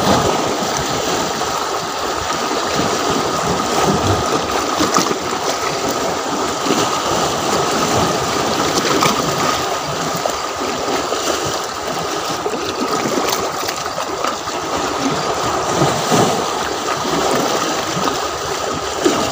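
Shallow seawater washing and gurgling around rocks and a concrete wall at the shoreline: a steady, splashy wash with no distinct breaks.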